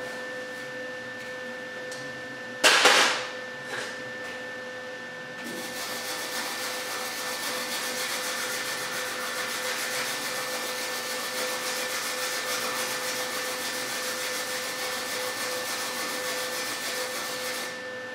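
A single hammer blow on the car's sheet-metal body, sharp with a short ring, about three seconds in. Then a steady hiss starts about five seconds in and runs on, over a faint steady hum.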